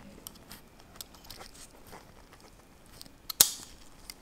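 Faint scattered clicks and scrapes from handling an AirTag's small speaker magnet on a steel blade with gloved fingers, with one sharper click a little over three seconds in.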